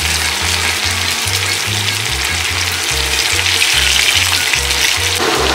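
Tofu slices sizzling steadily as they pan-fry in hot oil, being turned to brown golden. Background music with a repeating bass line plays underneath.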